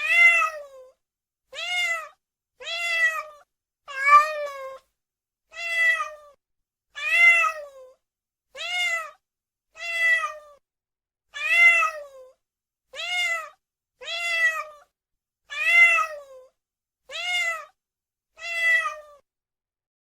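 A domestic cat meowing over and over: about fourteen similar meows, each under a second long, rising a little and falling away at the end, one roughly every second and a half with silence between.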